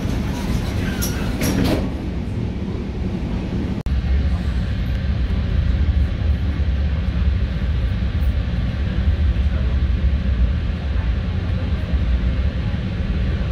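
Train running on the rails, a loud steady low rumble. It cuts out for an instant about four seconds in, then the rumble goes on heavier.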